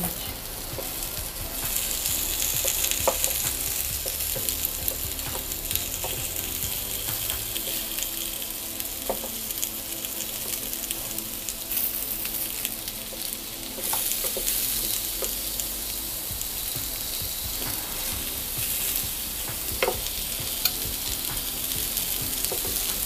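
Vegetable slices sizzling on the hot ribbed plate of an electric contact grill, a steady hiss, with scattered light taps and scrapes of a wooden spatula moving them about.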